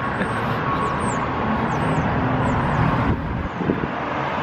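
Steady outdoor rumble, as of passing traffic or wind on the microphone, that drops off about three seconds in, with a few faint high chirps above it.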